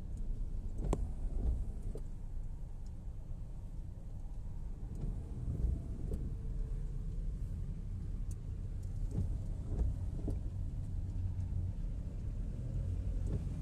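Steady low rumble of a car driving along a rain-flooded road, heard from inside the cabin, with a few scattered sharp ticks.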